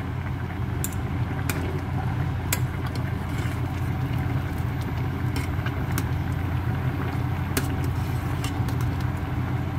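A steady low mechanical hum, with irregular sharp clicks of a metal spoon against the pot as red beans are stirred at the boil.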